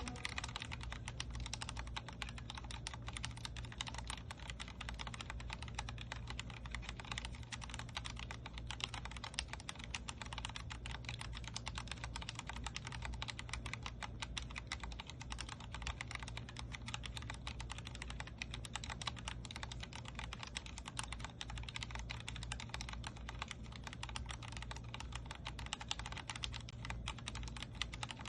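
Continuous fast typing on a Vortex Core 40% mechanical keyboard with Cherry MX Speed Silver linear switches: a dense, even stream of key clicks, with a steady low hum underneath.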